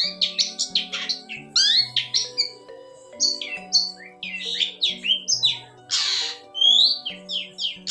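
Long-tailed shrike (pentet) singing a rapid string of short, varied chirps and whistles, with a harsh rasping call about six seconds in. Background music with held low notes runs underneath.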